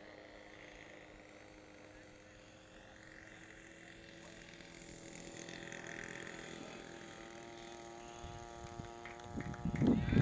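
Twin engines of a large RC P-38 Lightning warbird running steadily at low throttle as it lands and rolls out on the grass, with a few low thumps near the end.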